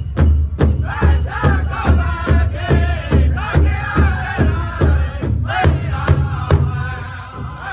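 Powwow drum group singing in unison in high, strained voices over a large shared hand drum struck by several drummers together in a steady beat of about two strokes a second. Drumming and singing fade near the end.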